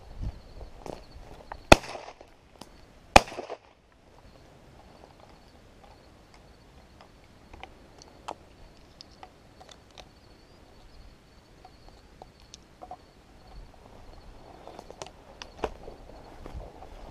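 Two shotgun shots about a second and a half apart, the second trailing off in a short echo, followed by quieter rustling and handling noise.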